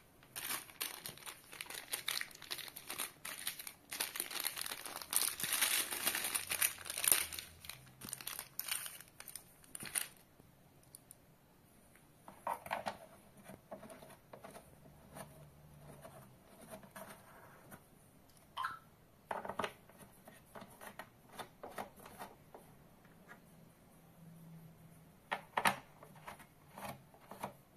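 Small plastic bag of mounting screws crinkling and being torn open for about ten seconds. Then come scattered small clicks and taps as metal standoffs are handled and fitted into the monitor's rear mount holes.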